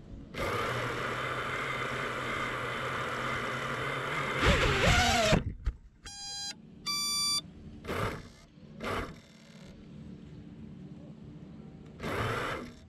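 FPV freestyle quadcopter resting on the ground with its motors running, a steady whir that rises briefly about four and a half seconds in and then stops. Two electronic beeps follow about a second apart, then a few short rushes of noise.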